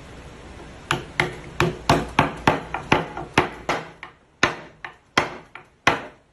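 A wood chisel struck repeatedly, about fifteen sharp taps at roughly three a second with a short pause near the end, chopping the outline of a small metal inlay piece into a wooden board.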